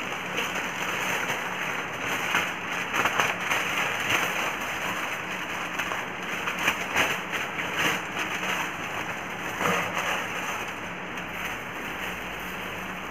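Aluminium foil crinkling and rustling in irregular clusters as it is folded, pressed flat and torn around a food parcel, thinning out near the end. A steady hiss of heavy rain runs underneath.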